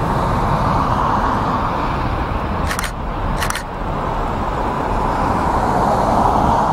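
Jet engine noise from a British Airways Airbus airliner that has just passed low overhead on final approach: a steady rushing rumble. Two brief clicks come about three seconds in.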